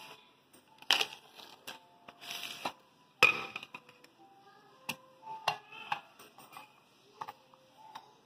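Dry dog kibble and rice being handled in a plastic tub: scattered clicks and knocks, a brief rattle about two seconds in and a sharp knock about three seconds in.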